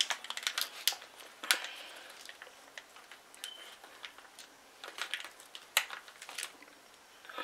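Hands handling paper and a paper mache figure: scattered light clicks, taps and crinkles at an irregular pace, with a brief squeak about three and a half seconds in.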